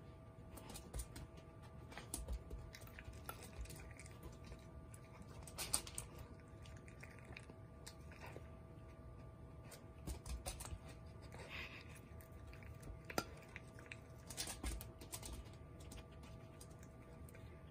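A mame shiba puppy crunching dry kibble and nosing the pellets around a plastic slow-feeder bowl, with scattered clicks of kibble and snout against the plastic; a couple of sharper clicks stand out.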